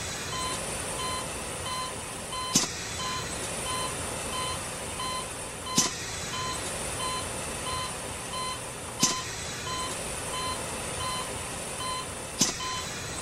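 Hospital patient monitor beeping about twice a second, over a ventilator cycling: a click about every three seconds, each followed by a hiss of air.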